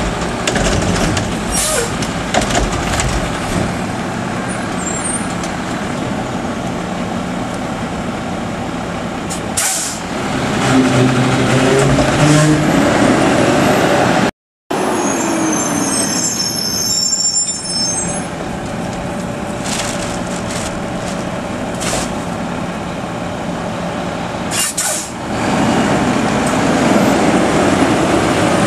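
Mack LEU garbage truck with a McNeilus Contender body and Curotto Can arm running at the curb: the diesel engine drones steadily and revs up for a couple of seconds about ten seconds in as the hydraulics work. Several sharp air-brake hisses cut through.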